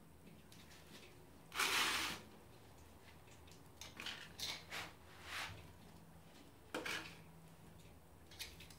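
Crassula cuttings being pushed into gritty potting soil: a longer scrape of soil and grit about a second and a half in, then several short, soft scrapes and clicks.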